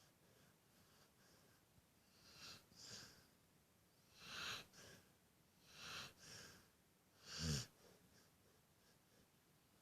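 A sleeping Rottweiler–beagle mix dog snoring: airy breaths every second or two, growing louder, with the loudest and lowest-pitched snore about three-quarters of the way through.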